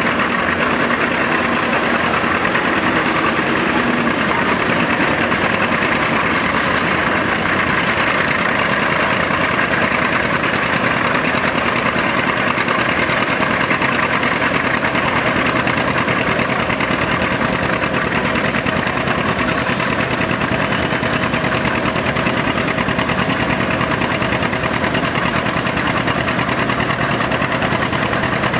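John Deere 620 two-cylinder tractor engine running steadily under load as the tractor pulls down the track.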